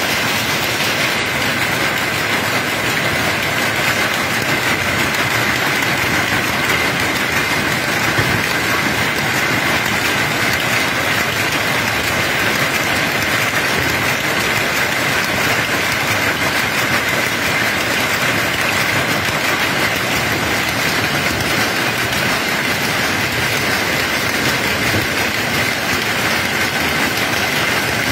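Many power looms running together, weaving cloth: a loud, steady, dense mechanical clatter with no pause.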